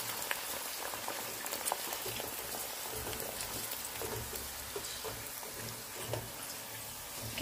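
Crab crackers deep-frying in the wire basket of an electric deep fryer: the hot oil gives a steady sizzle dotted with small crackles as the chips puff up.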